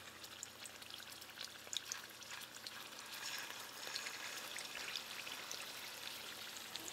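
Sausage-wrapped Scotch eggs shallow-frying in oil at about 350 °F: a faint, steady sizzle with many small scattered pops and crackles, growing a little louder about three seconds in.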